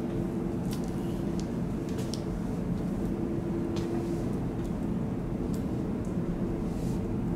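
Steady low background rumble with a faint constant hum and a few faint clicks: room tone.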